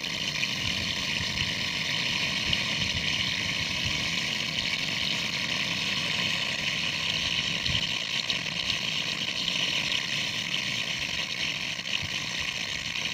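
Steady rushing of water swirling down into a hose submerged in a field channel, which keeps siphoning water into a 200-foot borewell by itself with the pump motor switched off.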